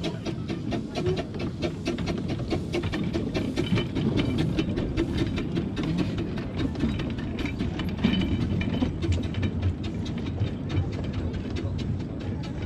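Miniature steam locomotive Sherpa hauling a train of coaches slowly past on the 12¼-inch-gauge Fairbourne Railway: a rapid, continuous run of wheel clicks and clatter from the track over a steady low rumble from the coaches.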